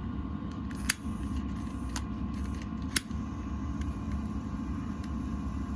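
A lighter clicking three times, about a second apart, over a steady low rumble.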